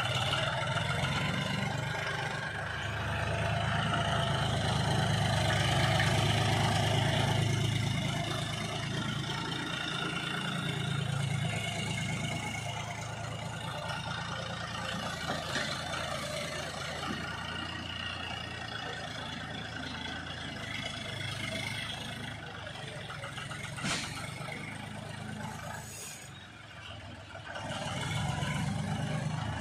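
John Deere 5310 tractor's three-cylinder diesel engine running while it works soil with a front dozer blade. It grows louder a few seconds in, eases through the middle, dips briefly and rises again near the end, with a single knock along the way.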